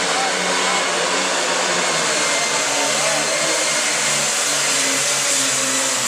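Hot-farm class pulling tractor's diesel engine at full throttle under load, pulling the sled: a loud, steady roar with a high whine, its note shifting up and down.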